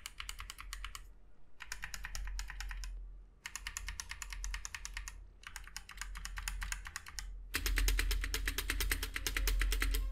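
Rapid typing on a Blitzwolf BW KB2 mechanical keyboard fitted with Gateron Yellow optical linear switches, in bursts of fast key clicks with brief pauses. About seven and a half seconds in, the typing gets louder and fuller.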